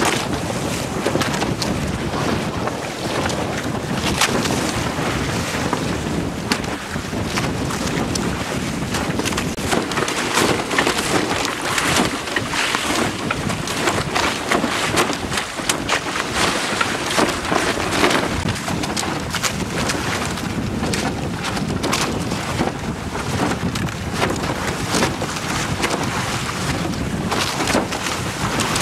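Wind buffeting the microphone over the rush and slap of choppy water along the hull of a small outrigger sailing boat under way, with many short crackling gusts and splashes.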